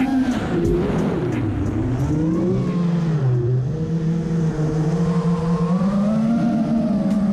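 FPV racing quadcopter's brushless motors whining as the throttle changes. The pitch sinks through the first few seconds, holds lower, then rises again near the end.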